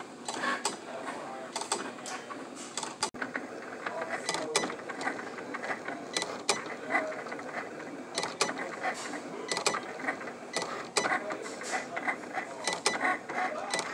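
Cricut Explore Air 2 cutting machine drawing with a pen: its motors whir in short, uneven runs as the carriage and pen move over the cardstock, with frequent irregular clicks. The sound drops out for an instant about three seconds in.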